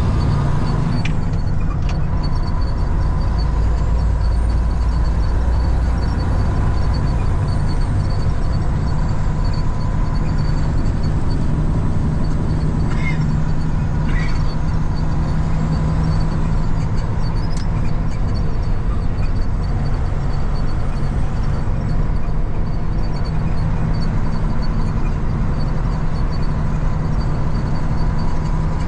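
John Deere farm tractor engine running steadily under way, heard from inside the cab: a strong low drone with a steady high whine over it and a faint regular ticking.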